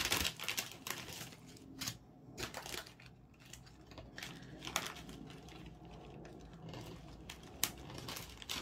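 Plastic crinkling and rustling as small zip-lock bags of diamond painting drills are handled and set down on the plastic-covered canvas, in irregular bursts with a few short, sharper crinkles.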